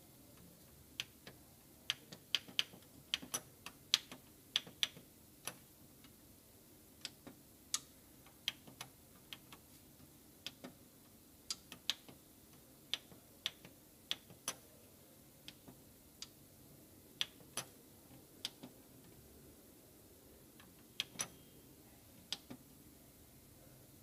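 Plastic arrow-key buttons on a printer's control panel clicking under a fingertip, pressed over and over to scroll through on-screen characters: a quick run of presses a few seconds in, then single clicks about every half second to second.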